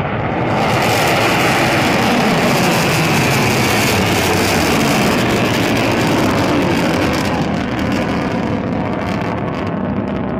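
Shaheen-III ballistic missile's solid-fuel rocket motor firing at launch: a loud, steady rushing noise as it climbs away, its hiss thinning out from about eight seconds in.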